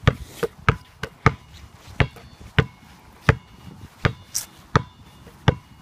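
Glow-in-the-dark basketball dribbled on asphalt: a sharp bounce about every two-thirds of a second, around nine in all.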